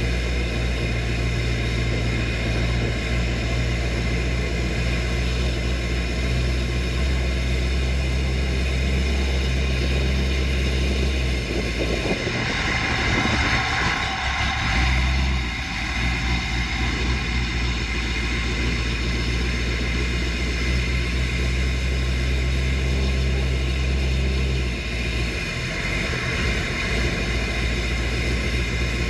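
A 6.0-litre LS V8 (L96) in a 1964 Ford F100, running steadily as the truck drives slowly. It is heard from the hood, right beside the open air filter on the intake. About twelve seconds in the engine note changes, with a louder rush for a few seconds, and it changes again briefly near the end.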